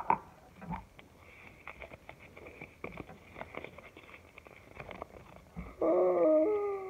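Faint rustling of a folded paper collector's leaflet being handled. Near the end comes a drawn-out wordless vocal sound from a girl, about a second long and falling in pitch.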